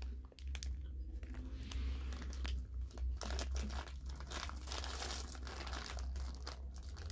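Plastic M&M's candy bag crinkling in irregular crackles as it is handled and turned over in the hands.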